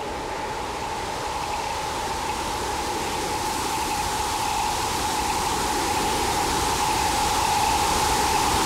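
Electronic noise drone: a steady hiss with one held mid-pitched tone through it, slowly growing louder, then cutting off abruptly at the end.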